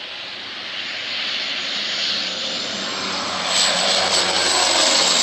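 Engines of a large firefighting airplane flying low, a rushing noise that grows steadily louder as it approaches, with a thin high whine coming in strongly over the last couple of seconds.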